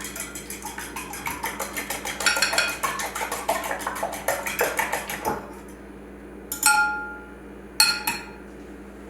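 A fork whisking three eggs in a bowl, clicking fast and evenly against the sides for about five seconds, then stopping. Two separate taps of the fork on the bowl's rim follow, each leaving a short ringing tone.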